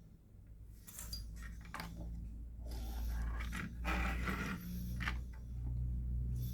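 Clicks, clinks and scrapes of metal computer parts being handled during a PC build, over a steady low rumble.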